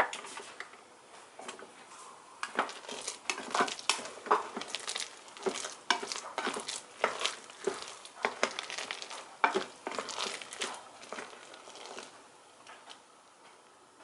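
Kitchenware being handled: irregular clinks and knocks of utensils against pots and dishes, several a second, dying away near the end.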